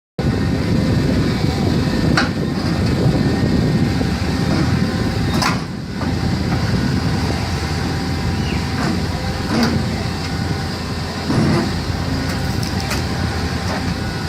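A heavy vehicle or machine running steadily with a low rumble, with several sharp metallic knocks or clanks at intervals.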